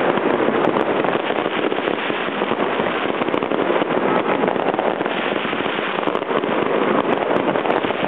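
Aerial fireworks going off in a continuous dense crackle, many small bursts overlapping at a steady level with no single big bang standing out.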